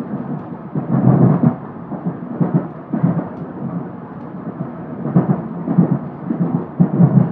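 Train running on the rails, heard from inside the car: a steady muffled rumble broken by irregular heavy thuds and rattling bursts every second or so.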